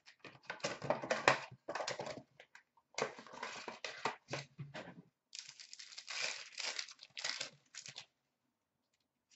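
Hockey card packs and their wrappers crinkling and tearing as they are handled and opened, in irregular rustling bursts that stop about eight seconds in.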